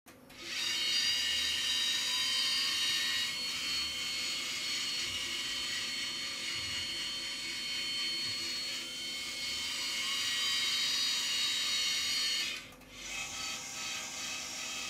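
Gendex Orthoralix 9000 panoramic dental X-ray (OPG) unit whirring as its motorised arm rotates around the patient's head during a scan: a steady mechanical whine with several high tones. It drops out briefly about twelve and a half seconds in, then resumes with a quieter, different tone.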